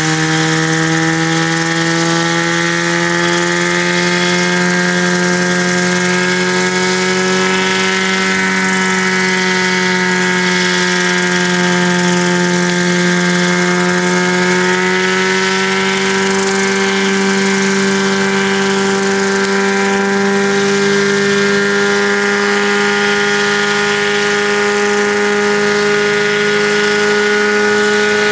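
Helitrike microlight helicopter's engine running with its contra-rotating rotors turning: a steady pitched hum that drifts slightly up and down in pitch, rising a little about a third of the way in and again about halfway.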